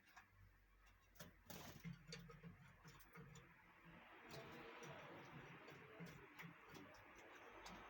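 Faint splashing and scattered sharp clicks of canaries bathing in a cage bath, the splashing thickening about halfway through, over a low steady hum.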